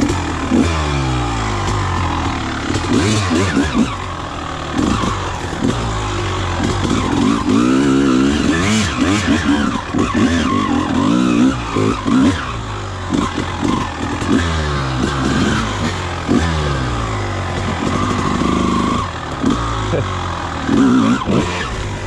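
1999 Honda CR250R two-stroke single-cylinder dirt bike engine being ridden off-road, revving up and falling back again and again as the throttle is worked.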